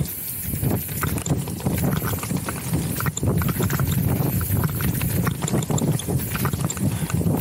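Downhill mountain bike rattling over a rocky trail: a rapid, irregular clatter of knocks from the tyres, suspension and chain over a steady low rumble.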